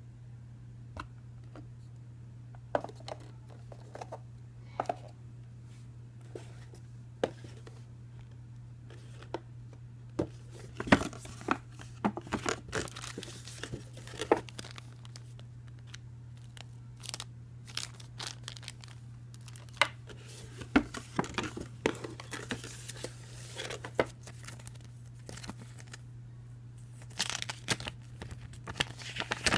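Hands handling toy-drone packaging: plastic wrap crinkling and tearing, and scattered clicks and taps from the cardboard box and small parts, busiest from about ten seconds in. A steady low hum runs underneath.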